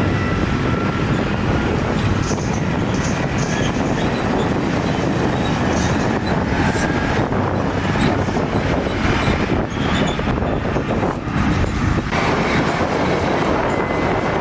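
Heavy earthmoving machinery running steadily: a continuous diesel rumble with metallic clanking and faint high squeals.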